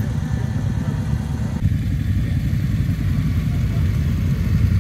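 Several motorcycle engines idling and running together: a steady, loud low rumble.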